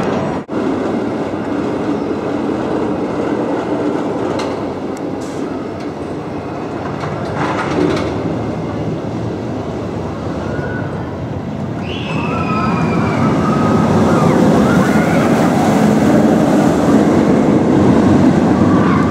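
B&M inverted steel roller coaster train running on its track, a steady rumble that grows louder in the second half, with high wavering calls over it from about two-thirds of the way in.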